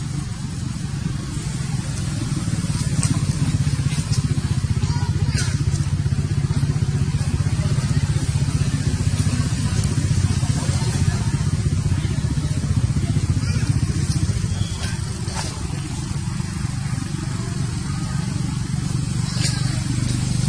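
A steady low engine hum with a fast, even pulse, like a motor running nearby, with a few faint clicks over it.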